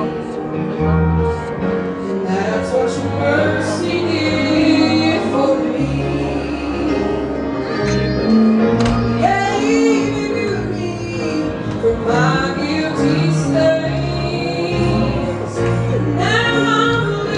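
A woman singing a slow song with instrumental accompaniment, her voice sliding between long held notes over sustained bass notes.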